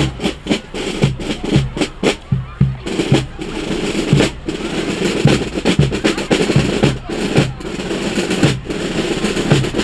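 Marching fanfare band's drums playing a street cadence: snare drum strokes and rolls over a bass drum beat of about two a second.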